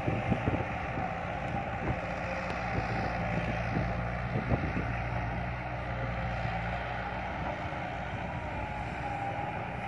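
Caterpillar hydraulic excavator's diesel engine running steadily as the machine swings and raises its boom.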